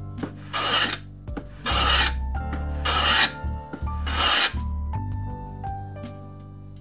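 Metal hand plane being pushed along the edge of a wooden board, four strokes about a second apart, each a short rasping hiss of a shaving being cut. The strokes stop a little past halfway, leaving background music.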